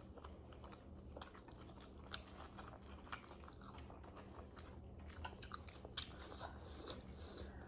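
Close-up eating sounds: chewing and biting, with many small irregular wet clicks and crunches of food in the mouth.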